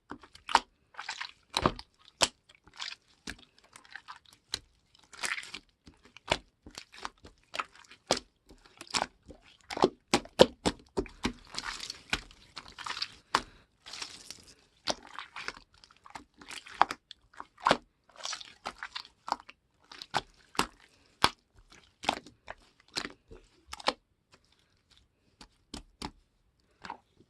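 Slime being squished and folded by hand: an irregular run of sharp clicks and crackles, with stretches of softer crinkly noise in the middle, thinning out near the end.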